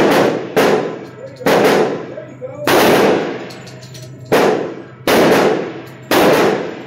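Pistol shots fired at irregular intervals, about seven in a few seconds, each a sharp crack with a long echoing tail off the walls of an indoor range.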